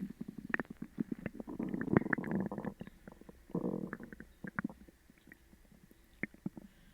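Human stomach and intestines gurgling and rumbling loudly, with many small bubbly pops and squelches: an upset stomach after sugar-free gummies. The loudest gurgle comes about two seconds in, a shorter one follows a second later, and then it settles to faint occasional pops.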